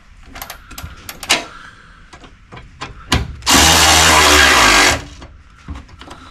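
A power drill runs steadily for about a second and a half, a little past the middle, with scattered clicks and taps of hand work on the truck's body parts before and after it.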